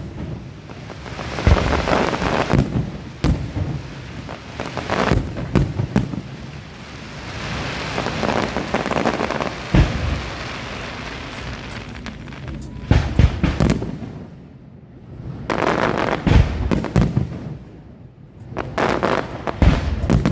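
Aerial fireworks display: a rapid barrage of shells bursting in sharp bangs, with stretches of dense crackling in between. It thins out briefly twice in the second half and builds again near the end.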